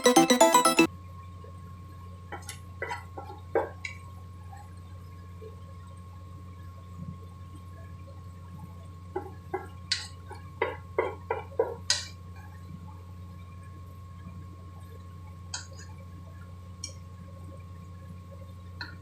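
Background music ends about a second in, leaving a steady low hum. Over the hum come scattered light taps and clinks of kitchen utensils, in two short clusters and a few single ones.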